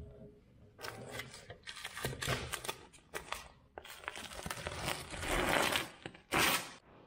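Dry scratchy scraping and tearing sounds in irregular bursts, from close hand work along the edge of a wooden ceiling beam where it meets the painted ceiling. The loudest burst comes near the end.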